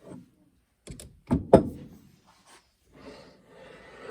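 A few sharp knocks as a metal part is handled and set down, the loudest about a second and a half in, followed near the end by a scraping rub of parts sliding against each other.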